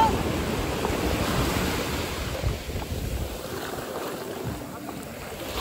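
Sea surf rushing onto the beach, with wind buffeting the microphone; the rush is loudest in the first couple of seconds and then eases off.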